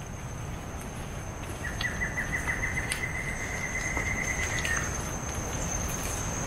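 Tropical rainforest insects droning, one steady high-pitched tone. About two seconds in, an animal call joins it, starting as a quick run of pulses and then holding one steady tone for about three seconds before stopping.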